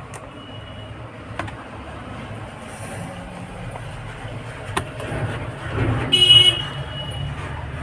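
Steady low background rumble with a few faint clicks, and a short high-pitched beep about six seconds in, after a fainter one near the start.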